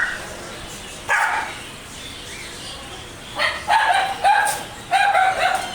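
A dog barking: one bark about a second in, then a quick run of about five barks in the second half.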